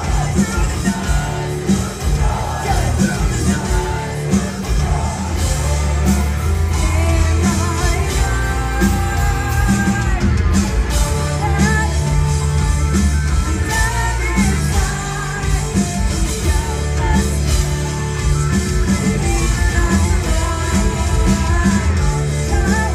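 Live rock band: a female lead singer singing over distorted electric guitars, bass and drums, heard loud from the crowd in a large hall.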